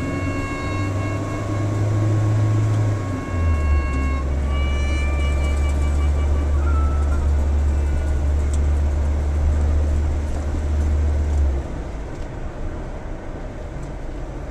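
Interior drone of a 1972 Citroën DS 21 on the move, a deep steady rumble of engine and road noise that drops in level near the end. Held musical notes sound over the first half.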